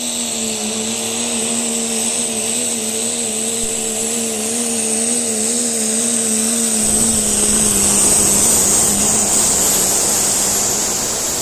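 Diesel pickup truck running flat out while pulling a weight sled, its engine drone wavering in pitch under a steady high turbo whistle. It grows louder and rougher about seven seconds in.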